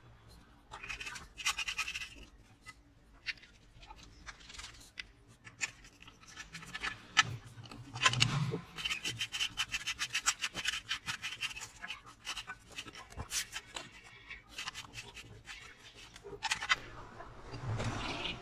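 Plastic parts of a Briggs & Stratton lawn mower engine's recoil starter being handled and fitted together, the starter pulley going into its housing: scattered clicks and knocks with stretches of scraping, and a heavier knock about eight seconds in.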